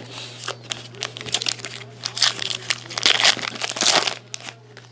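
Plastic-foil wrapper of a hockey trading-card pack crinkling as it is torn open by hand, an irregular crackle that is heaviest in the second half and stops about four seconds in.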